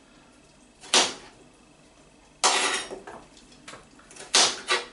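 Kitchen knife chopping sliced carrots on a chopping board: a few sharp strikes of the blade on the board at uneven intervals, one drawn out a little longer, and two in quick succession near the end.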